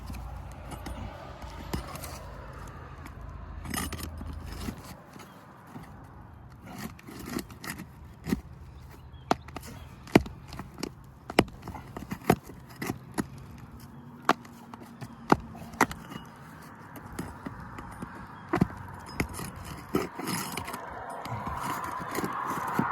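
Hand tools working under old asphalt roof shingles to lift them and free the nails: a series of sharp, irregular metallic taps and scrapes, several a second at times. A low hum in the background stops about five seconds in.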